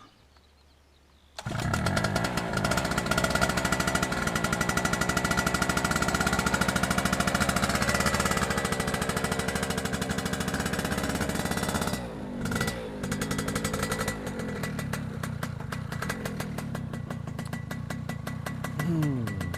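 A small combustion engine starts about a second and a half in and runs with a rapid, steady beat. Around twelve seconds in it briefly drops back and changes pitch, then keeps running a little quieter.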